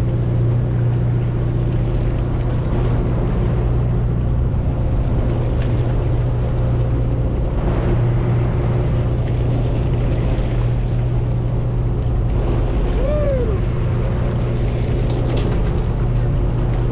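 Steady low drone of a fishing boat's engines running at a constant idle, unchanging throughout. A short squeak that slides down in pitch about two-thirds of the way through.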